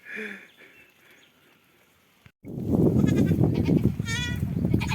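Goats bleating: a short wavering bleat about three seconds in and another about a second later, over loud rumbling background noise that starts abruptly just after two seconds.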